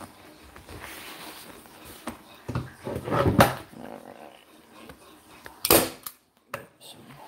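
Handling noises as a vinyl-wrapped truck armrest is shifted about and set down on a wooden table: light rustling, a heavy bump about three seconds in, and a single sharp knock near the end.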